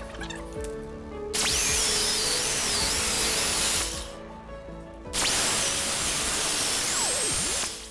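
Electric jigsaw cutting wood in two runs of about two and a half seconds each, its motor whine wavering in pitch, over background music.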